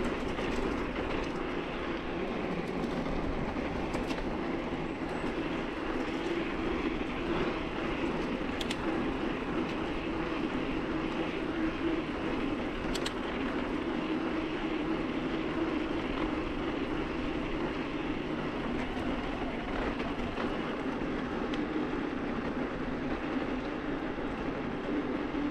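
Steady rolling noise of a mountain bike being ridden, with a few sharp clicks from the bike.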